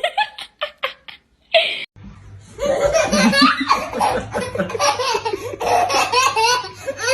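People laughing: a few short bursts in the first two seconds, then continuous laughter from about two and a half seconds in.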